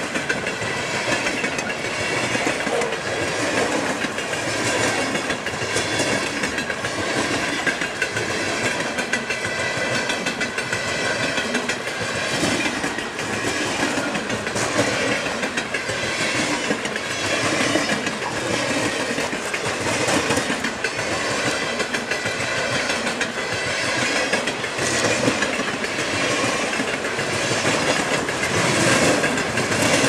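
Norfolk Southern coal train's freight cars rolling past close by, the wheels clicking over the rail joints in a steady repeating rhythm under a continuous rumble, with a steady high ringing tone over it.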